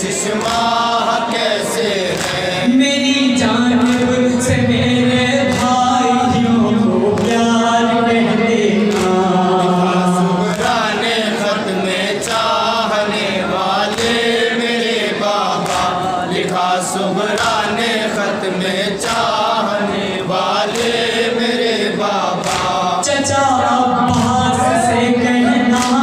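A group of men chanting a noha, a Shia lament, in unison through microphones, with a steady beat of open palms striking chests (matam) under the voices.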